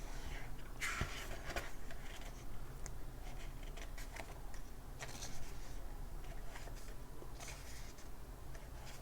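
Soft, scattered rustles of paper as the pages of a book are handled and turned, over a steady low hum.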